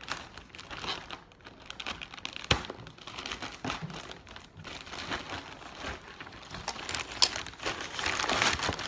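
Plastic poly mailer bag crinkling and rustling as it is cut with scissors and pulled open, with a couple of sharp clicks. The crinkling grows louder near the end.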